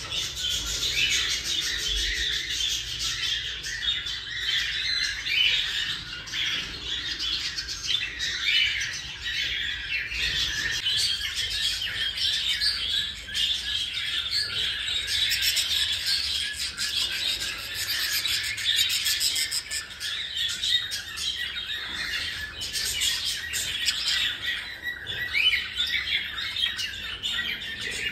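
Baby cockatiels chirping and squawking continuously in a dense, overlapping chorus of raspy calls.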